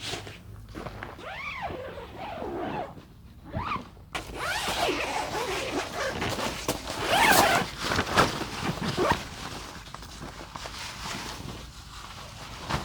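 A dog gives two short whines that rise and fall in pitch. From about four seconds in they give way to several seconds of noisy rustling and scraping, loudest a few seconds later.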